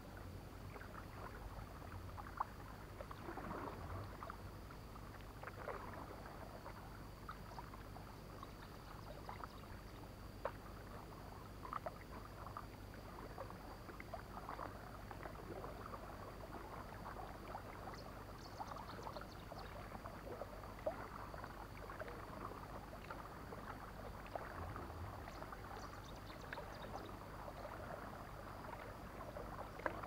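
Kayak paddling: paddle blades dipping and splashing in the water in an uneven rhythm, with a few light knocks.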